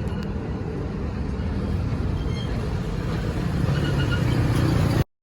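A motor vehicle's engine running with road noise, getting a little louder near the end, then cutting off abruptly.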